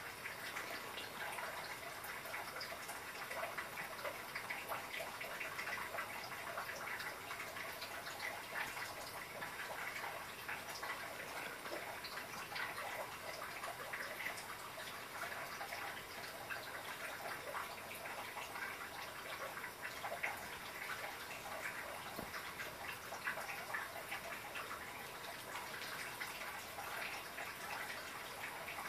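Cat eating from a small bowl: a steady run of small, quick clicks and smacks of chewing.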